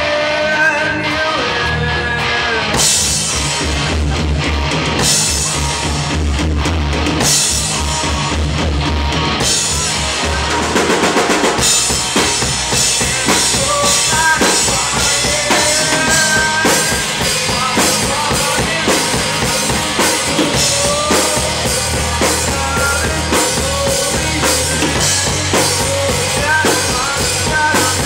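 Live rock band playing on electric guitars, bass guitar and drum kit. The drums come in with a full, steady beat about ten seconds in.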